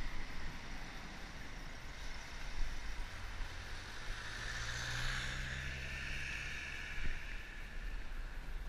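A car passing the bicycle on a wet road: its engine hum and tyre hiss build from about three seconds in, peak around five seconds and fade by about seven. Under it runs a steady low wind rumble on the microphone.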